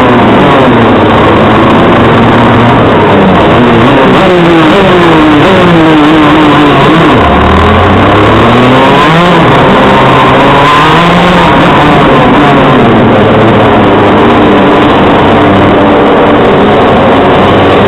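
TM KZ10C 125 cc two-stroke shifter kart engine heard onboard at racing speed, loud, its pitch rising and falling repeatedly as it accelerates, shifts and slows for corners. The engines of the karts close ahead sound at the same time, several engine notes crossing each other.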